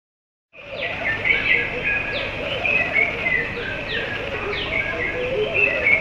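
Morning chorus of several birds, cutting in suddenly after about half a second of silence: many short, high, falling notes repeated over and over, above lower looping phrases repeated at a steady pace.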